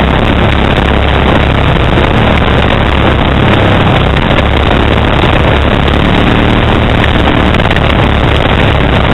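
Kawasaki Brute Force 750 ATV's V-twin engine with a Muzzy aftermarket exhaust, running steadily at trail-riding pace, heard loud and close from a camera on the front rack, under a dense rushing noise from the ride.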